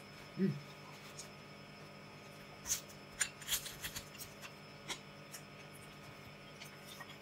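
A short hummed 'mm' from the eater, then a run of sharp crackles and clicks from eating crispy dried fish (tuyo) with the fingers.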